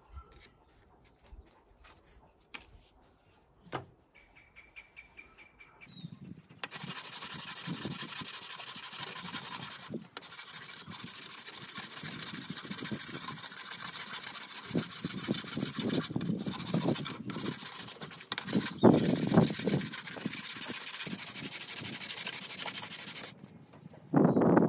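Mahogany strip being sanded by hand with sandpaper on a block: continuous rubbing strokes that start about a quarter of the way in, break off briefly, and stop shortly before the end, when a short burst of rubbing comes again. A few light clicks come before the sanding.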